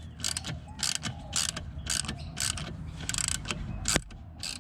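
Socket ratchet wrench clicking in short rasping bursts, about two a second, as it works bolts on a car's transmission mount, with one sharp click near the end.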